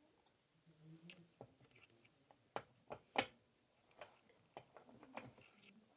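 Scattered light clicks and taps of small metal parts being handled, the sharpest near the middle: a piston ring being set into a cylinder bore of the VW 16v engine block for an end-gap check with a feeler gauge.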